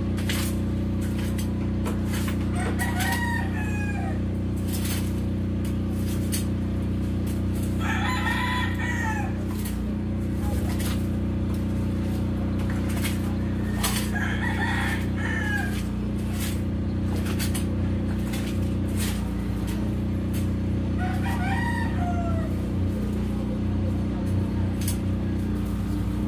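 A rooster crows four times, several seconds apart, over a steady low engine drone from construction machinery. Short scraping clicks from a long-handled tool being worked in a drainage canal come through at intervals.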